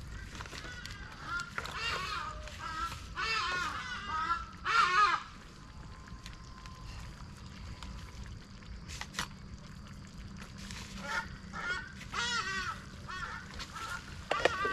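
Birds giving repeated honking calls in bursts, loudest about five seconds in, then quiet for several seconds before calling again near the end.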